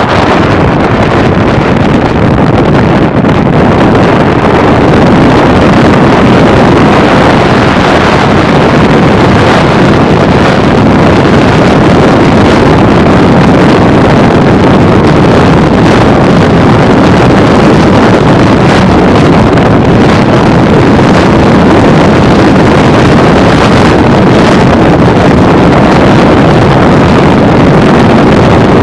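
Steady, very loud rush of wind and road noise from a car driving at freeway speed, the wind hitting the camera microphone.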